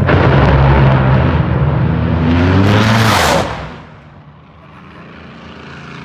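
Drag racing car's engine at full throttle as it accelerates down the strip, its pitch climbing. It peaks about three seconds in, then drops away quickly to a faint tail.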